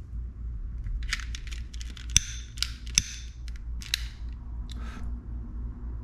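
A quick run of small clicks and crackles from handling small tools and parts at a work mat during a hot-glue rod-tip repair, with two sharp clicks about two and three seconds in. A steady low hum runs underneath.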